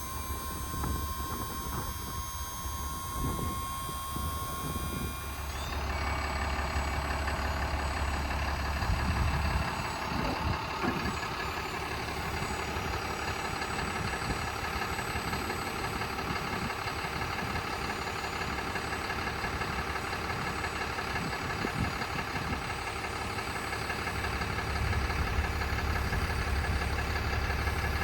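Electric-over-hydraulic service crane's pump motor running with a steady mechanical whine, starting about five or six seconds in, over a steady low hum, as the crane is worked.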